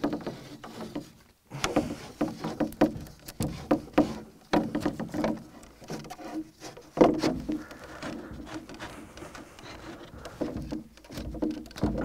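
Moss and dry twigs being handled and laid on a shelter roof by hand: irregular rustling and crackling with occasional light knocks.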